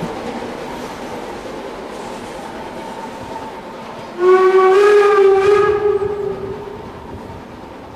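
Steam whistle of the Harz narrow-gauge 2-10-2 tank locomotive 99 7236 giving one long blast about four seconds in, lasting some two and a half seconds and rising slightly in pitch as it starts. Under it the rumble of the coaches rolling away fades out.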